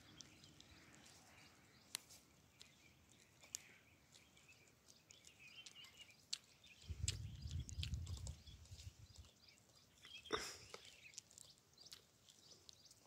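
Quiet outdoor ambience: faint bird chirps and scattered small clicks, with a short low rumble about seven seconds in and a brief sharper sound about ten seconds in.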